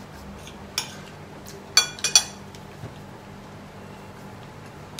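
Metal fork and spoon clinking and scraping against a ceramic plate while eating: a few sharp clinks, one about a second in and a quick cluster of the loudest ones around two seconds in.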